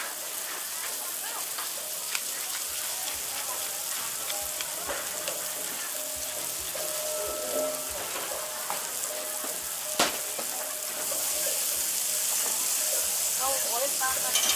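Beef burger patty and onions sizzling on a flat-top griddle, a steady frying hiss. There is a single sharp click about ten seconds in, and the sizzle grows louder about a second later.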